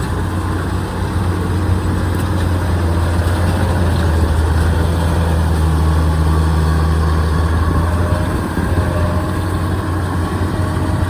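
Kubota DC-93 combine harvester's diesel engine running steadily under load, with a deep, even hum that dips briefly about eight seconds in.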